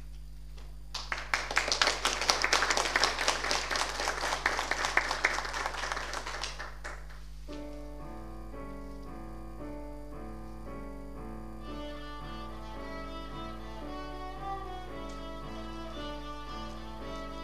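Audience applauding for about six seconds, the clapping fading out. Then a violin and keyboard duo starts a slow piece in steady stepped notes, a higher line joining about twelve seconds in.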